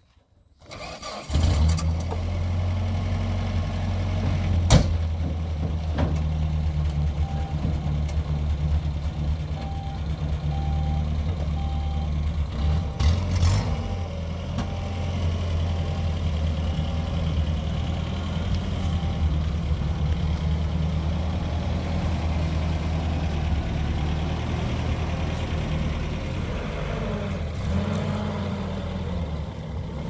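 A pickup truck's engine starting about a second in and then running at a steady idle, with a few knocks over it. Near the end the engine pitch rises and falls as the truck pulls away.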